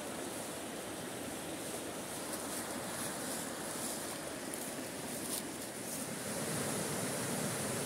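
River water rushing over rocks in a steady wash of noise, growing a little louder about six seconds in.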